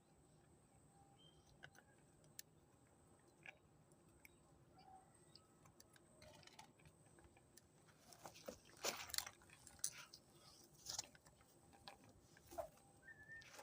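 Chickens pecking: faint scattered taps and clicks that turn into a busier run of louder pecks in the second half.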